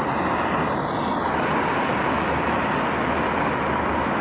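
Brazing torch flame burning with a steady roar while the fuel tank's breather fitting is being brazed.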